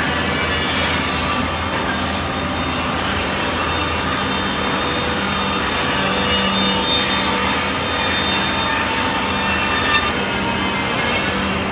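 CNC jigsaw machine running as it cuts stacked wooden chair parts: a steady mechanical din with high whining tones over a low hum. A brief louder knock comes about seven seconds in and another near ten seconds.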